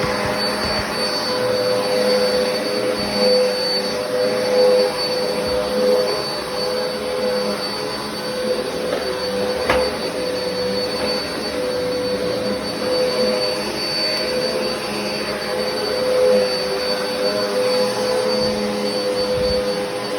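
Black & Decker vacuum cleaner running steadily, its motor giving a constant hum with a high whine over the rush of suction. A single short click about ten seconds in.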